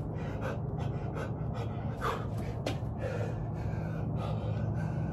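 A man panting hard between burpee reps, breathing heavily and unevenly, over a steady low hum.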